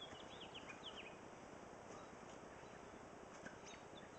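Faint bird chirps, a quick run of short high notes in the first second and a few scattered ones later, over a quiet steady outdoor background hiss.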